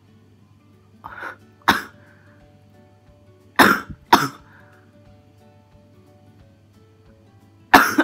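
A man's short, sharp cough-like breaths in three pairs, about a second apart, as he tickles the inside of his nose with a twisted tissue: strained attempts at a sneeze that doesn't come. Background guitar music plays throughout.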